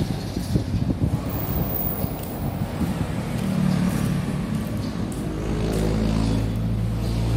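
A vehicle engine running with a low, steady drone that builds from about three seconds in and holds from about five seconds in, with scattered knocks and rustling before it.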